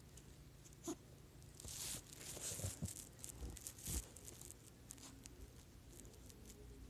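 Snow crunching in a run of scuffling bursts from about two to four seconds in, with a single short click about a second in.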